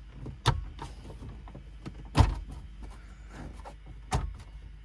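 Plastic dash trim being pried off a Ford Super Duty dashboard: three sharp snaps as the retaining clips let go, the loudest about two seconds in, with faint rattling and scraping of plastic between.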